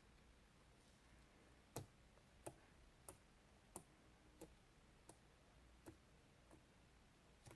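A run of about nine faint, sharp clicks at a steady pace, roughly three every two seconds, starting about two seconds in, the first one the loudest, over near silence.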